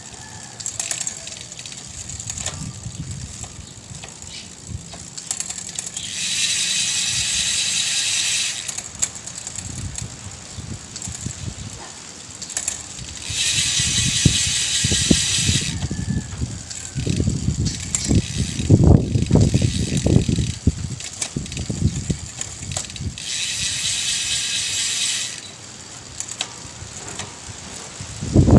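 Bicycle mechanism ticking like a freewheel ratchet, with light clicks and knocks. Three times it is broken by a steady hiss about two seconds long that starts and stops abruptly.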